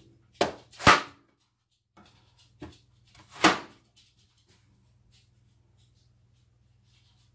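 A large kitchen knife chopping through a small watermelon and striking a plastic cutting board: a few sharp chops in the first four seconds, the loudest about a second in. After that come only faint clicks.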